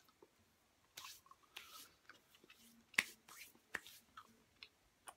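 Scattered quiet mouth clicks and short hissy noises of someone chewing a hard piece of black licorice taffy.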